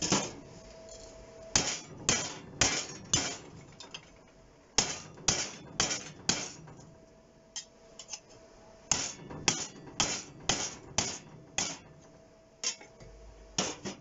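Hammer blows on a piece of scrap gas-bottle steel, flattening it on a workbench: sharp metallic strikes in runs of about two a second, with short pauses between the runs.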